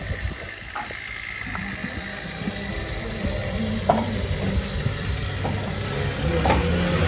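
Concrete-block masonry work: a few sharp knocks and clinks, the loudest about four seconds in, over a steady low hum and a noisy hiss.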